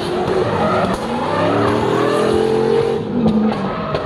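Drift car engine revving hard as the tyres screech through a slide, the engine pitch rising and falling about halfway through.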